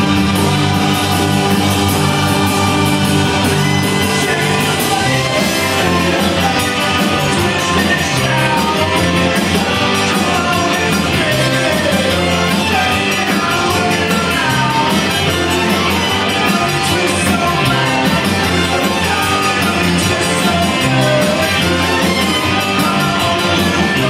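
Tex-Mex rock band playing live, with electric guitars, bass, drums, keyboard and button accordion, and singing over it.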